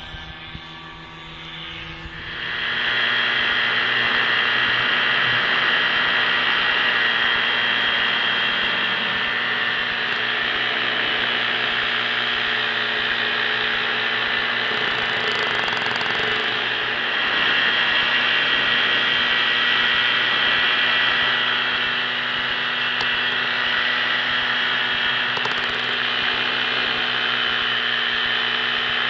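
Paramotor engine and propeller running steadily at a high drone, heard close up from the onboard camera with wind rush over the microphone. It comes in loud about two seconds in, after a quieter start.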